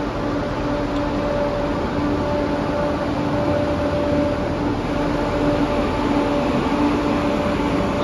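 Diesel multiple-unit train standing at the platform, idling with a steady humming drone that holds a constant pitch.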